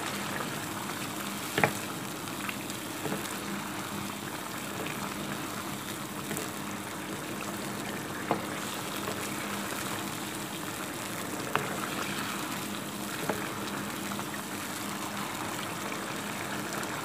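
Mutton pieces in ghee and tomato juices bubbling and sizzling steadily in a frying pan as the meat is browned, with a wooden spoon knocking against the pan a handful of times while stirring.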